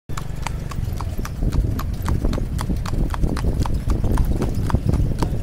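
Marwari horse's hooves clip-clopping on asphalt at a brisk, even trot, about three to four beats a second, as it pulls a tanga cart.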